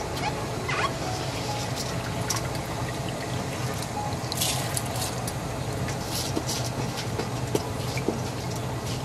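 Seasoned cooking liquid bubbling in a pot as dry basmati rice is added, with a brief rush of pouring grains about four and a half seconds in and light ticks of grains landing in the liquid.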